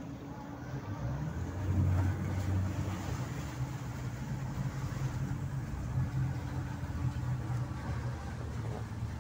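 Speedboat engine running at low speed, a steady low hum that swells briefly about two seconds in.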